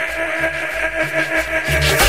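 Cumbia music: a held electronic keyboard chord over a pulsing bass line, with the full percussion beat coming in near the end.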